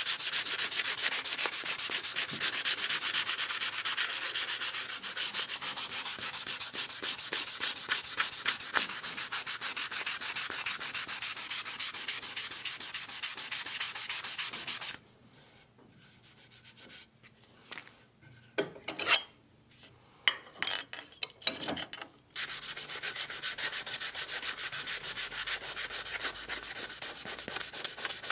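Hand-sanding a wooden cleaver handle with a loose perforated sanding disc held in the fingers: fast back-and-forth scratchy rubbing strokes. About halfway through the sanding stops for several seconds, leaving only a few light knocks and clicks, then starts again.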